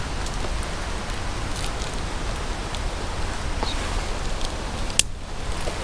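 Steady outdoor hiss with faint rustles and ticks of handling, and one sharp click about five seconds in as a plastic hook is pressed onto a leg of a metal triangle camping rack.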